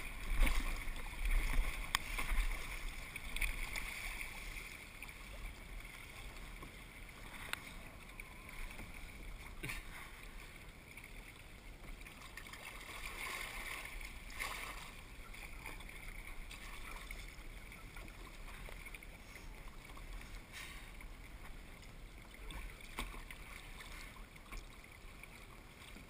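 Kayak paddling: water lapping and swishing around the hull, with a few short paddle splashes. Wind rumbles on the microphone for the first few seconds.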